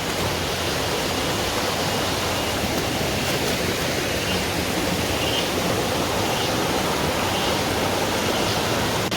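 Fast-flowing rocky mountain stream rushing steadily, running high with a strong current.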